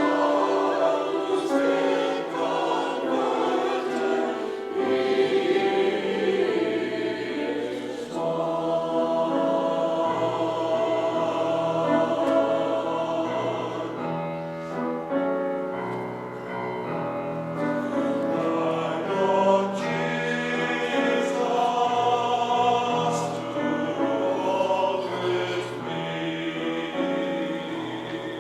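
A church choir singing a hymn over sustained low accompaniment notes.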